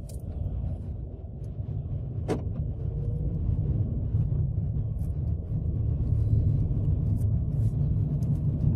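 Car engine and road rumble heard from inside the cabin as the car drives off down the street, growing steadily louder as it picks up speed. A single sharp click about two seconds in.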